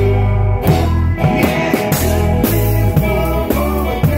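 Live band playing a repeating blues riff on drum kit, bass guitar and guitars, with a steady beat and cymbal strokes.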